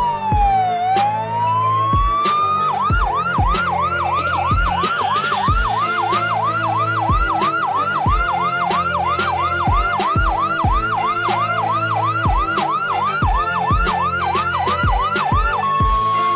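Electronic ambulance siren: a slow rising-and-falling wail for the first few seconds, then a fast yelp of about three sweeps a second until near the end. Background music with a steady beat runs underneath.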